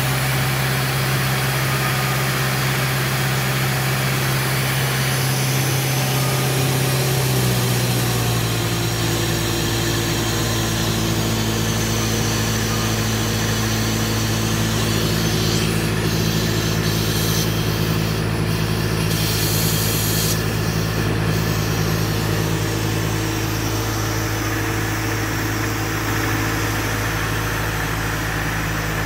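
Self-generating nitrogen servicing cart running steadily under load, a constant machine hum with hiss above it. The hum shifts slightly in pitch about seven seconds in.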